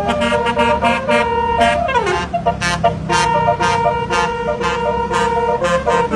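Tour bus's basuri musical horn playing a tune: pitched notes change in quick succession, with a downward slide about two seconds in and a regular beat, over a steady low engine hum.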